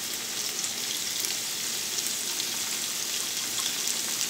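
Sliced zucchini and yellow squash sautéing in canola oil in a hot skillet: a steady frying sizzle with faint crackles.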